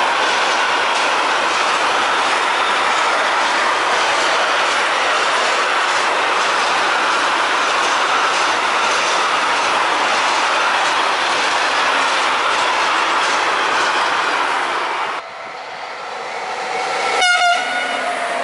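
Freight train of pocket wagons loaded with lorry trailers rolling past at speed, a steady noise of wheels on rail. Near the end, after a change of scene, an electric locomotive sounds one short horn blast.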